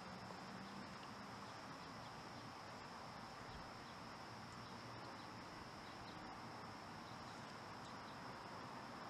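Faint, steady chirring of insects, with a continuous high buzz and a few faint ticks.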